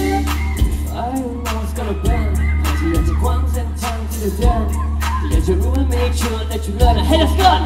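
Live pop song played through a PA: a band with drums, electric guitar and a heavy low bass line under several male voices singing and rapping, with steady regular drum hits.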